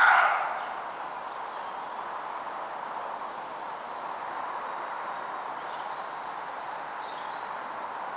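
A single harsh alarm bark from a roe deer, loud and sudden, fading away over about half a second. A steady background hiss runs underneath.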